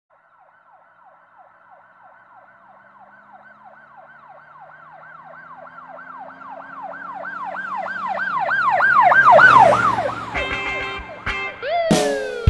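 Siren wailing in a fast yelp, about three to four sweeps a second, growing louder as it approaches, then dropping in pitch and fading as it passes. Short musical hits follow near the end.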